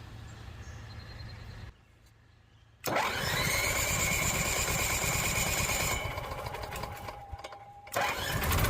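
Onan Microlite 4000 RV generator being started. After a brief quiet, it comes in suddenly about three seconds in, running low and rough with a whine that rises and then holds. It drops away about six seconds in and is loud again near the end.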